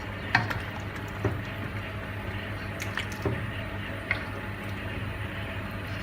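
Chicken curry simmering and bubbling in a pot over a steady low hum, with a few short sharp knocks against the pot.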